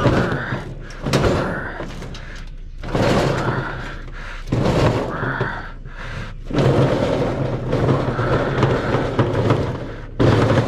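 A heavy, awkward scrap item being wrestled and pushed up for loading, scraping, banging and knocking in rough stretches as it is shoved.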